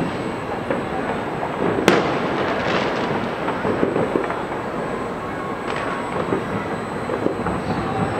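Distant fireworks: scattered pops and crackles over a steady rumble, with one sharp bang about two seconds in.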